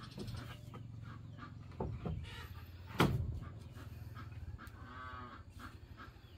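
Wooden floor planks knocking and shifting as they are laid on a timber floor frame, with one sharp wooden knock about three seconds in. Chickens cluck in the background, with a short call near the end.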